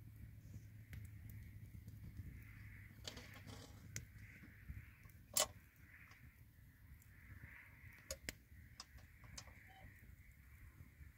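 Open wood fire burning under an iron saj griddle: scattered sharp crackles and pops over a low steady rumble, the loudest pop about five seconds in and two more close together near eight seconds.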